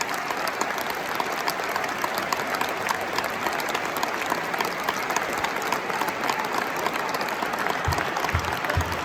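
Large stadium crowd applauding, a dense even clatter of clapping. A few short low thuds come near the end.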